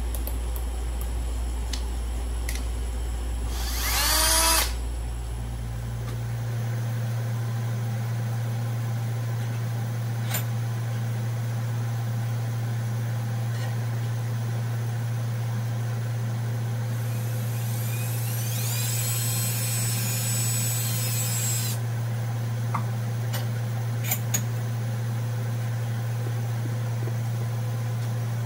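Cordless hand drill spun up briefly about four seconds in, its pitch rising, then a longer run of about five seconds drilling a small hole with a number-size bit, with a high whine. A few light clicks and a steady low hum run underneath.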